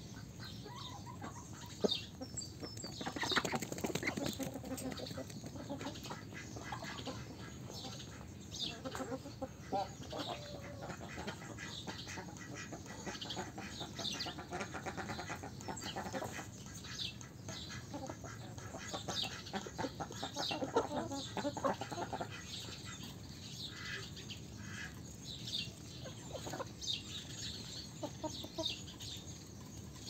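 A flock of domestic hens clucking on and off while they forage and peck at the ground, with a few louder calls among the soft clucks.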